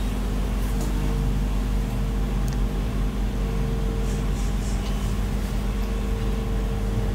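Steady humming background noise with a few constant low tones and no distinct events.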